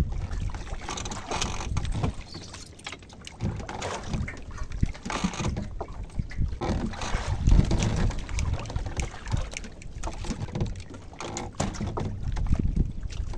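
Wind rumbling unevenly on the microphone over water moving around a small wooden fishing boat, in irregular gusts with a few brief splashy bursts.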